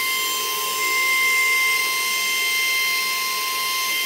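CNC router spindle running with its bit cutting into a wooden door panel: a steady high-pitched whine of several held tones over a hiss, holding level throughout.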